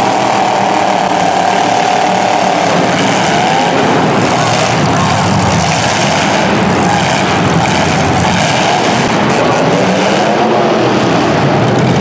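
Several demolition derby cars' engines running at high revs as the cars push against each other, their pitch rising and falling, in a loud continuous din.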